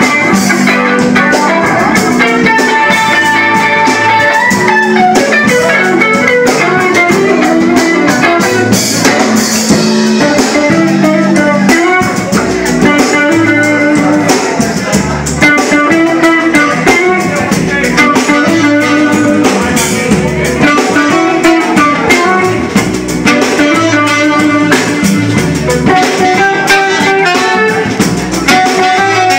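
Live band playing: electric guitar over a drum kit, loud and steady, recorded on a mobile phone.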